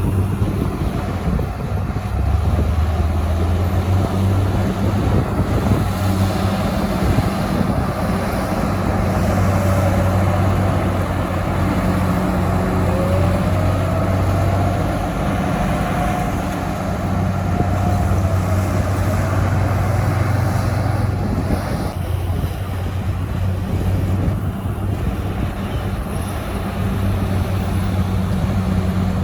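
Heavy diesel engines of earthmoving machinery running steadily, a deep drone that swells and eases, with a faint whine rising and falling in the middle.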